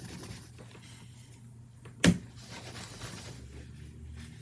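Faint handling and rubbing of tissue paper wiping excess petroleum jelly off a Rubik's cube, with a few small ticks and one sharp knock about two seconds in.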